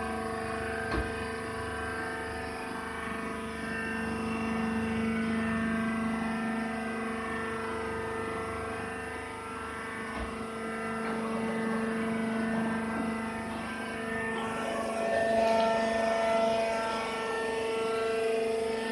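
Hydraulic baler's motor and pump running with a steady hum; about fourteen seconds in the tone shifts and grows louder.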